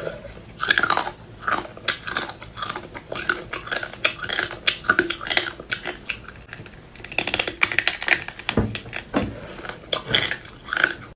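Crunching and crackling of small whole crabs being bitten and chewed shell and all, in quick irregular cracks, with a quieter stretch about six seconds in.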